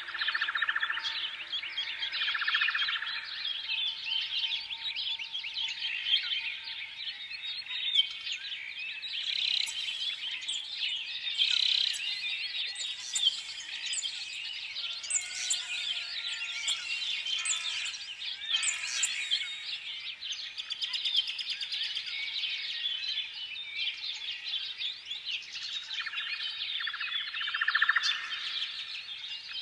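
A chorus of many small songbirds chirping and twittering at once: dense, overlapping high chirps and trills with no pause. A few higher, thin repeated notes stand out in the middle.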